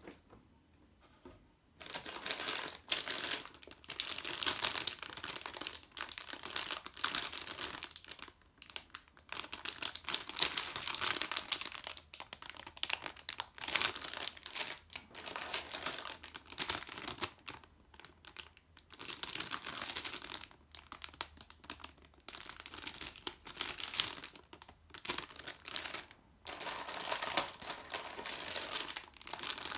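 Clear plastic bags around model kit parts runners crinkling and rustling as they are handled, in stop-start bursts beginning about two seconds in.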